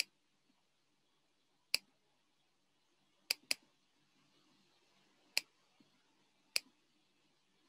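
Computer mouse clicking: six sharp single clicks a second or two apart, two of them a quick double click about three and a half seconds in.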